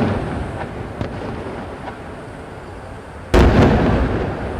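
Aerial firework shells bursting: the rumble of one burst dies away, a couple of faint pops follow, and a single big boom comes about three seconds in, rolling on with a long echoing rumble.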